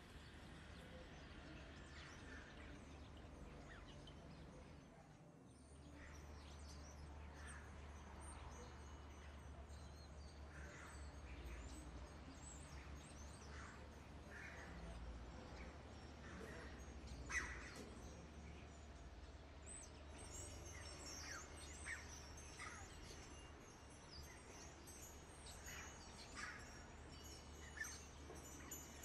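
Near silence: a faint steady low hum with scattered faint short chirps and a few soft clicks.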